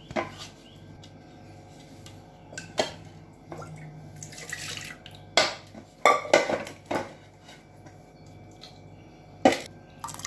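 A stone cooking pot and a steel vessel knocking and clinking as a little water is swished around the pot to rinse out leftover mashed greens and poured into the steel vessel. There are several sharp knocks and a longer watery swish about four seconds in.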